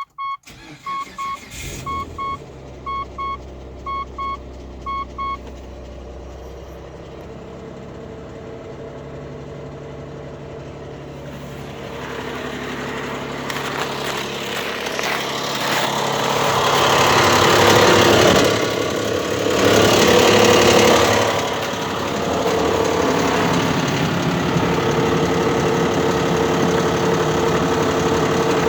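Short electronic beeps from the car's warning chime in the first few seconds. Then the Mitsubishi Pajero IV's 3.0 V6 petrol engine runs, louder for a few seconds past the middle and then settling to a steady idle, with the engine knock that the owner has come to show.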